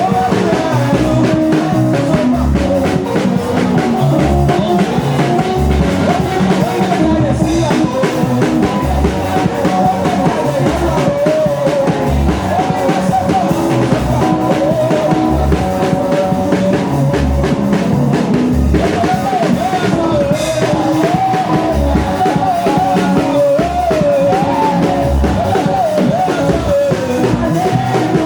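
Band music with a drum kit: a bass drum beat about every second and a bit, under a wavering lead melody.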